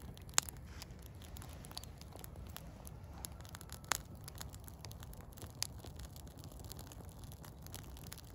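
Small birch-bark and twig fire crackling, with scattered sharp pops, three of them louder, over a steady low rumble of wind on the microphone.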